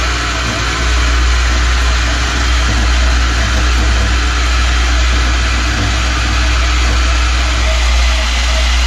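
Bauer portable band saw running steadily with a constant motor hum, its blade cutting a small piece of scrap stock.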